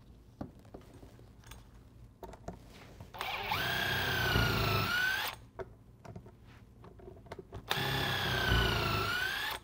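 Makita 18V cordless impact driver turning a power punch through a rubber conveyor belt to punch a fastener hole. It runs twice for about two seconds each, about three seconds in and again near the end, with a motor whine that sags and then rises again, after a few faint knocks.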